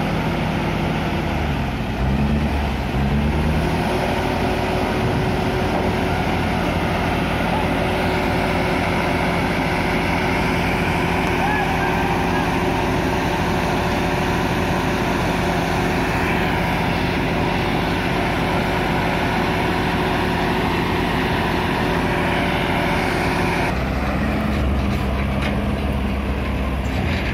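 Loaded Tata truck's diesel engine running as the truck pulls slowly off the ferry ramp and up the bank. The engine pitch rises and falls about two seconds in, and the low engine sound changes and strengthens near the end.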